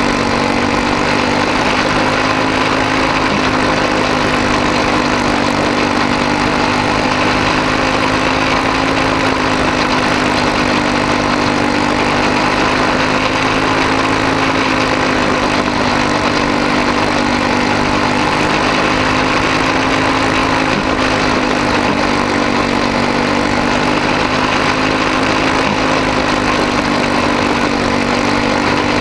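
Small single-cylinder racing engine of a quarter midget, heard onboard, running continuously at nearly constant high revs, its pitch rising and falling only slightly through the turns, with wind and tyre noise underneath.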